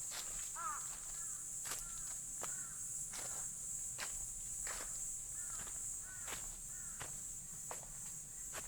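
Footsteps at a steady walking pace on a leaf-covered forest trail, about one step every 0.7 seconds. A steady high insect trill runs underneath, and a small bird gives short repeated chirps.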